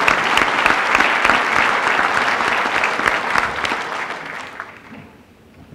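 Large audience applauding, many hands clapping densely, then dying away about four to five seconds in.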